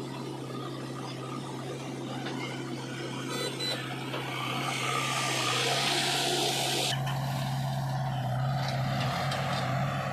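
Diesel engine of a JCB 3DX backhoe loader running steadily while it digs mud. About halfway through, a loud rushing as a bucketful of mud is tipped into a tractor trolley, which stops abruptly about two-thirds of the way in. The engines of the backhoe and a Sonalika tractor hauling the loaded trolley follow.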